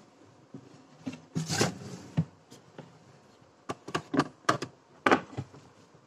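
Food storage containers being handled and moved on a refrigerator shelf: a string of short knocks and clatters, busiest a little after a second in and again toward the end.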